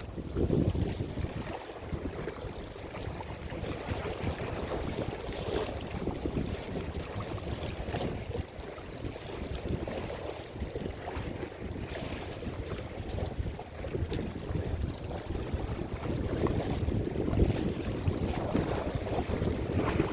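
Strong gusting wind buffeting the microphone: a rough, fluctuating low rumble that rises and falls in level.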